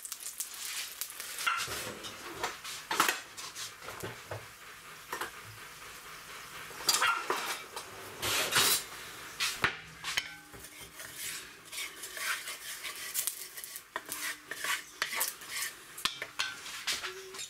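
Small pieces of fat-tail lamb fat sizzling as they render in a hot roaster, with repeated scrapes and knocks against the pan. Near the end a wooden spatula stirs them.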